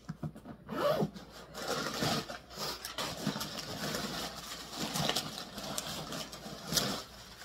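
A leather handbag being handled and pulled open, with the paper stuffed inside rustling and crinkling in irregular bursts.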